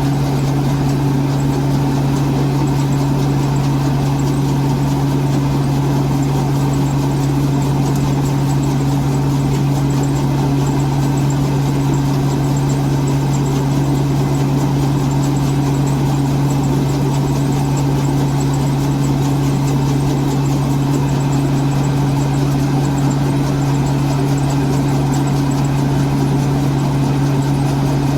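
Engine of a rice combine harvester running steadily at an unchanging pitch, with no revving or changes in load.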